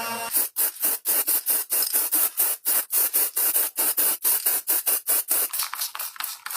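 Rapid back-and-forth abrasive rubbing strokes by hand on a hard surface, about six strokes a second, starting just after the music stops.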